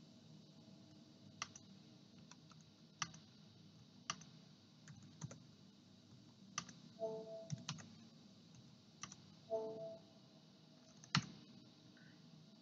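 Faint, irregular clicks of computer input, about eight of them spread unevenly, as values are entered in robot simulation software. Twice, a short low tone sounds briefly.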